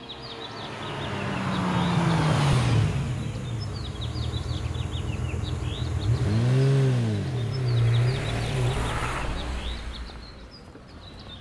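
A small hatchback car driving up and pulling in, its engine pitch falling about two seconds in, then rising and falling again around the middle as it slows. Many short bird chirps sound over it.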